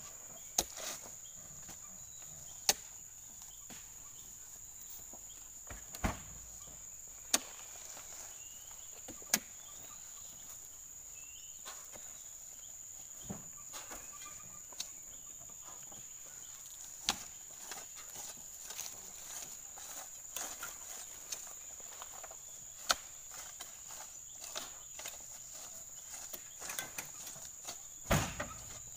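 Sharp knocks and thuds at irregular intervals, a few seconds apart, as heavy oil palm fruit bunches are speared with a metal pole and pitched up onto a lorry's load. Insects keep up a steady high drone underneath, and there is a burst of several knocks near the end.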